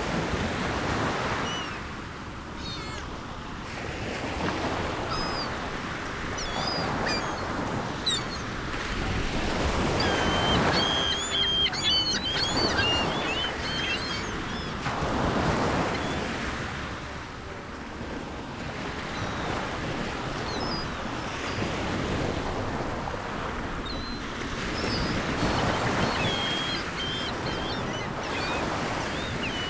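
Recorded ocean soundtrack: surf washing in and out in slow swells every few seconds, with seagulls crying in the middle and again near the end.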